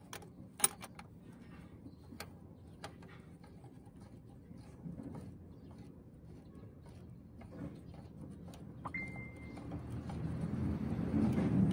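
Metal clicks and taps of locking pliers and a second pair of pliers working the clutch pushrod adjuster under a Mitsubishi Canter truck, sharpest in the first few seconds. A brief high squeak comes about nine seconds in, and a low rumble builds near the end.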